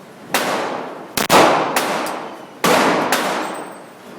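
Pistol shots from a Sig Sauer P229 in .40 S&W: about five loud, sharp reports fired at irregular gaps of roughly half a second to a second, each trailing off in a long echo.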